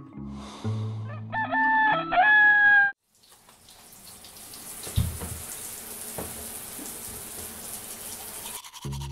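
A rooster crows twice in a row over a bouncy bass-line tune. The music then cuts off, and water runs steadily until shortly before the end, when the tune starts again.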